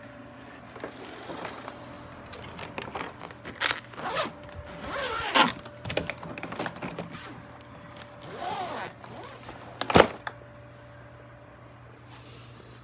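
Clicks, knocks and scraping from a hard-shell suitcase being handled, with one sharp loud click about ten seconds in.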